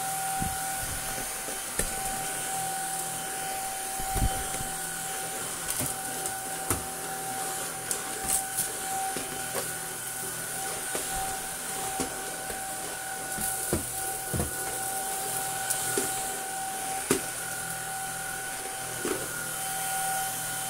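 Greenote GSC50 cordless stick vacuum running steadily with a constant whine and hiss as its floor head is pushed over carpet and a plastic chair mat, with occasional short knocks and clicks.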